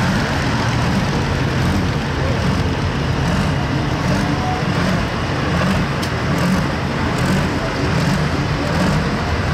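Diesel engine of a Deutz 06-series tractor running steadily at idle, hitched to a pulling sled while waiting to start its pull.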